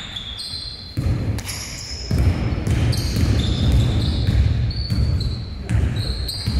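Basketball game on a hardwood gym court: the ball bouncing, players' running footsteps thudding on the wooden floor and sneakers squeaking, picked up close to the floor. The thudding gets heavy from about a second in.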